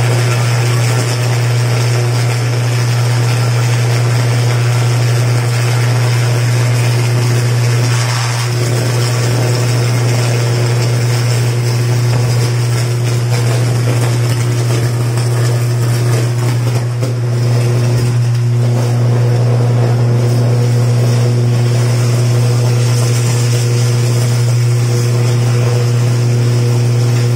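Live power line arcing in the rain with a loud, unbroken low electrical buzz, over steady rainfall hiss.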